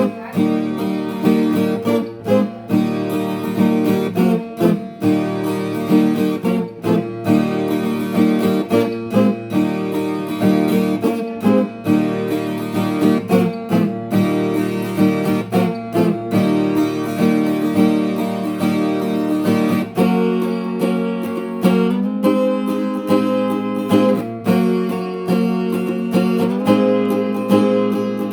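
Brazilian viola caipira strummed in a steady rhythmic pattern, ringing chords with a change of chord about two-thirds of the way through.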